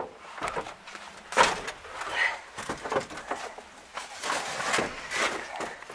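Handling noises inside a tractor cab: a sharp click at the start, then a string of knocks and rustles at uneven intervals. The engine is not running.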